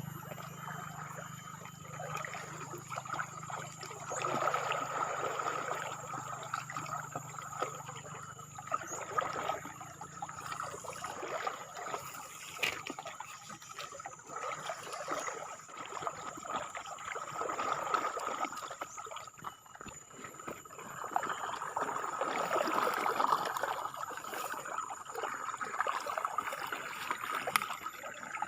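Flowing river water rushing and trickling, swelling and easing every few seconds, with a faint steady high tone over it.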